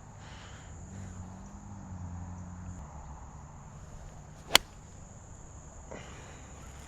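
An 8-iron striking a golf ball once, a single sharp click about four and a half seconds in, over a steady high-pitched insect buzz.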